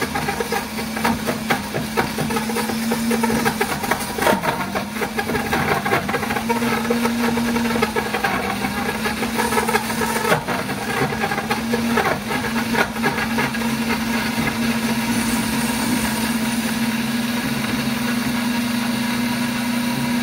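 Pampered Chef Deluxe Cooking Blender running at speed on its grind setting, grating chunks of Parmesan cheese. Pieces of cheese clatter against the blades and jar over a steady motor tone, the clatter thickest in the first half and thinning as the cheese is ground fine.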